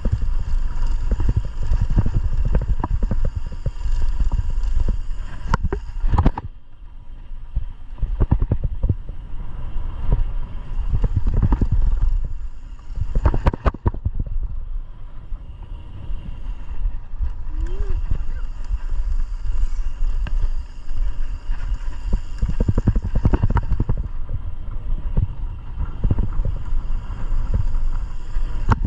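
Mountain bike ridden fast along a dirt trail: the bike rattles and knocks over bumps and roots, with a steady rumble of wind on the microphone. It eases off briefly a couple of times.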